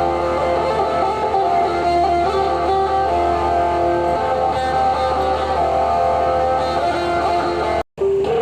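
Background music led by guitar, with held notes and a steady level; it cuts out for a moment near the end and comes back.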